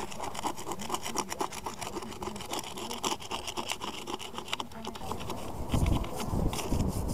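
Metal hand tools scraping and scratching at old, crumbling mortar and brick in quick strokes. Near the end a wire brush scrubs the brick surface, louder and deeper.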